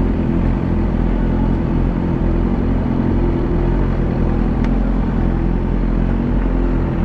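Sport motorcycle engine idling steadily, a low even rumble.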